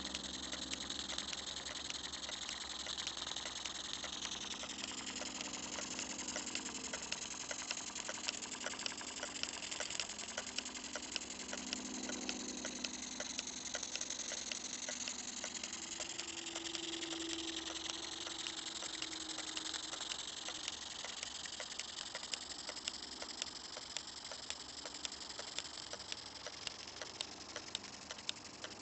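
Bing vertical live-steam toy engine with a fixed cylinder running steadily: a rapid, even ticking clatter of its strokes and moving parts over a hiss, while it drives belt-driven line-shafting pulleys.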